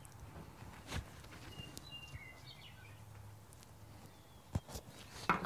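Faint handling sounds of a screwdriver pushing a ribbon knot into a slot in a rubber ball: a few soft clicks and knocks, more of them near the end. A bird chirps a few times in the background about two seconds in.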